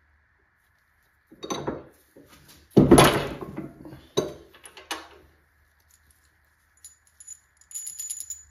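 Steel rocker arms and small metal parts clattering as they are picked up and set down on the arbor press and bench. The loudest is a heavy clank about three seconds in, with a few lighter clicks after it and a quick metallic jingle near the end.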